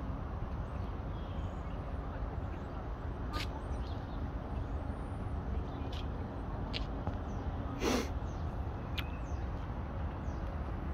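Outdoor ambience: a steady low rumble with a few short, sharp clicks, the loudest about eight seconds in, and faint high chirps.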